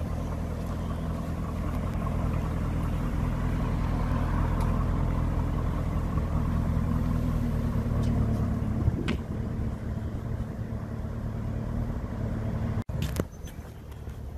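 Lamborghini Urus's twin-turbo V8 running steadily at low revs as the SUV rolls away at walking pace. There is a single click about nine seconds in, and near the end the sound cuts out for an instant and returns quieter.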